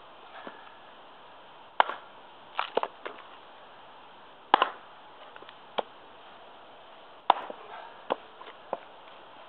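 Small Prandi Yankee axe chopping into a short log round on a chopping block, swung one-handed: three sharp chops about every three seconds, with lighter knocks between them.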